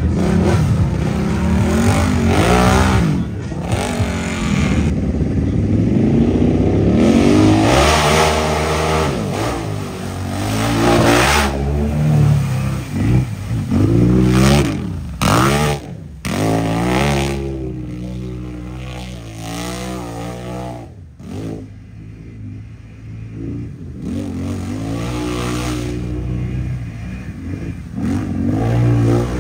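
ATV engine revving hard through deep mud, its pitch climbing and falling again and again as the throttle is worked, with mud spraying off the tires. The engine eases off for a few seconds about two-thirds of the way in, then revs hard again near the end.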